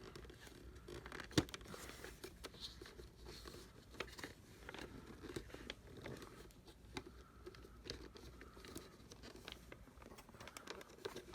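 Faint clicks, scrapes and rustles of wires being fed through the holes of a plastic vacuum cleaner housing, with one sharper click about a second and a half in.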